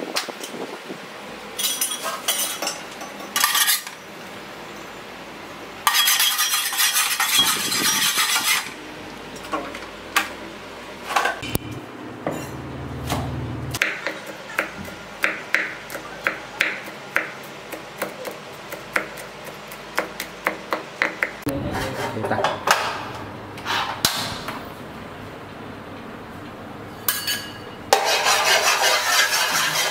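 Cleaver chopping on a chopping block: a run of sharp knocks at about two a second, amid scattered clatter of a pot and utensils. Two stretches of hissing noise, one several seconds in and one near the end.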